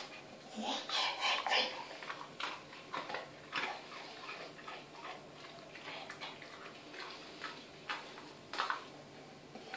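Quiet, scattered clicks and scuffs from a dog in rubber-soled dog boots shifting about on a hard floor and taking treats, with a small cluster of them near the start and another near the end.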